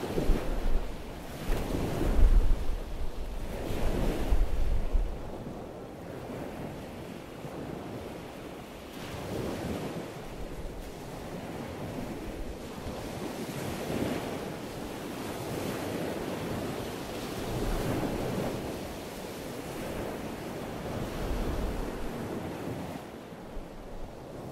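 Sea surf washing in swells every few seconds, with wind buffeting the microphone in loud low rumbles during the first few seconds.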